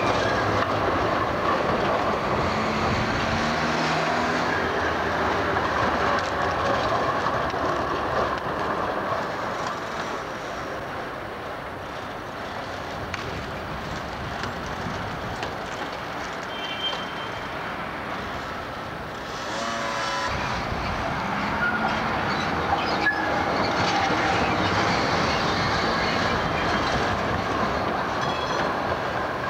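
Amsterdam street trams running on street track, passing close: the rumble and rattle of wheels on rail, with thin steady tones in the first several seconds that fit wheel squeal. The sound changes briefly about twenty seconds in, then the rolling noise carries on.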